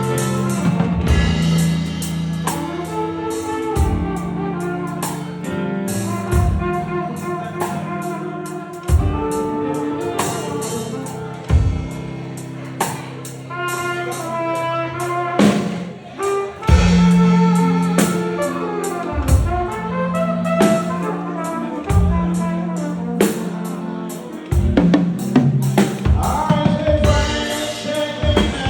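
Flugelhorn playing a slow melody of held notes over an accompaniment with a steady drum-kit beat.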